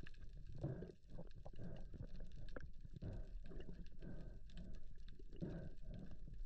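Muffled underwater sound of a diver handling a speared salmon on a spear shaft: irregular low thumps and water movement, with scattered light clicks.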